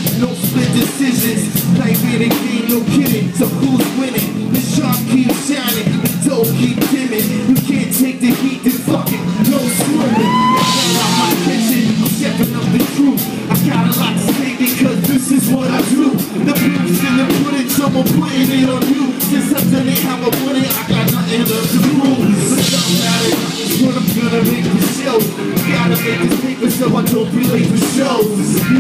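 Live boom-bap hip-hop from a band with drum kit and guitar, playing a steady beat, with a vocalist on microphone over it.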